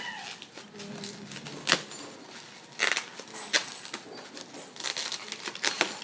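Plastic packaging and bubble wrap being handled and unwrapped, with irregular sharp crackles and crinkles, a cluster of them near the end.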